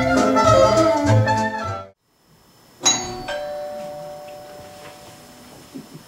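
Jazz music cuts off about two seconds in. Shortly after, a two-note ding-dong door chime rings once, and its tones die away slowly.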